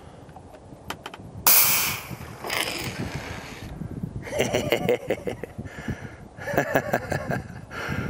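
A few clicks, then a sudden loud hiss of a water jet squirting from a homemade bird-deterrent sprayer's nozzle as its valve opens. The hiss is strongest for about half a second and fades over the following second.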